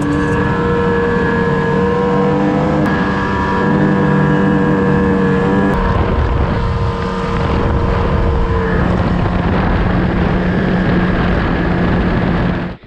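Snowmobile engines running at a steady speed while towing sleds, with wind noise on the microphone. The engine pitch shifts abruptly about six and nine seconds in, and the sound cuts off sharply near the end.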